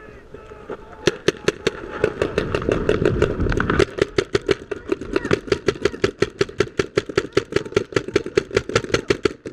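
Paintball markers firing in steady rapid strings, about five sharp pops a second, starting about a second in.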